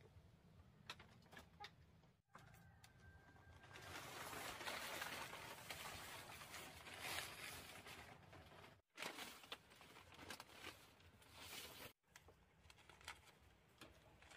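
Blue plastic tarpaulin rustling and crinkling as it is pulled and handled, building up for a few seconds in the middle. Faint scattered taps and clicks come before and after.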